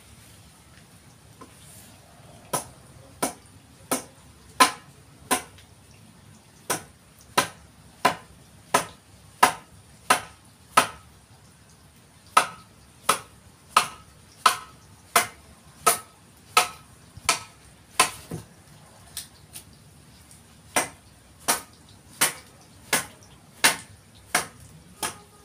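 Sharp, evenly paced strikes of a hand tool into the forest red gum wood of a didgeridoo being shaped, about three every two seconds, in short runs with brief pauses, over a faint steady hiss.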